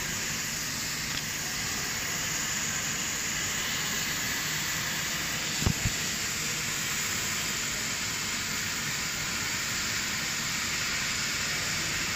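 Cutting torch hissing steadily as it burns through the steel of a ship's launch cradle, with two brief thumps a little under halfway through.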